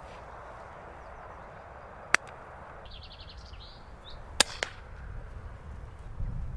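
Two sharp cracks of a Daystate Pulsar PCP air rifle firing, about two seconds apart, the second followed by a fainter click. A brief rapid chatter comes between them, over a steady outdoor hiss.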